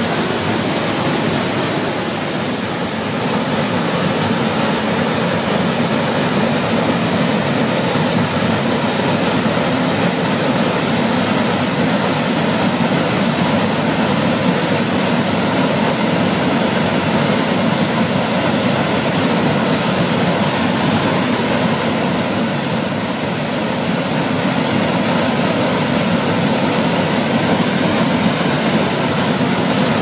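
A 6 m waterfall pouring over rock into its plunge pool: a loud, steady rush of falling water.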